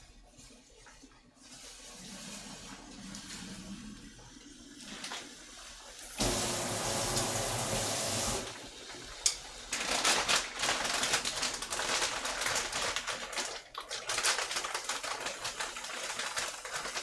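Kitchen tap running into a sink: a steady rush of water starting about six seconds in for a couple of seconds, then a sharp click, then several seconds of water splashing and clattering under the running tap.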